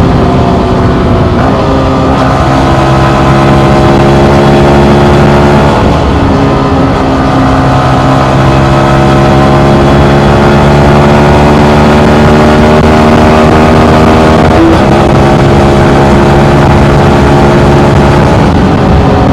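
Yamaha MT15's 155 cc single-cylinder engine running under way on the road, heard up close. The engine note holds and slowly changes pitch, with a few sudden steps where the revs change, about 1.5, 6 and 15 seconds in.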